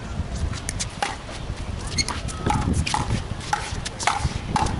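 Pickleball paddles hitting the plastic ball in a fast rally: a rapid series of sharp pocks, about two a second, each ringing very briefly.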